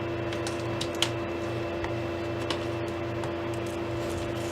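Steady room hum with a constant tone, from a running machine such as a fan or air conditioner, with a few faint light clicks about one second and two and a half seconds in.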